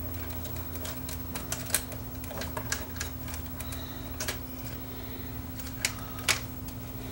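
Hands handling wiring and plastic parts inside an opened CD changer's chassis: scattered sharp clicks and taps, the loudest about two seconds in and near the end, over a steady low hum.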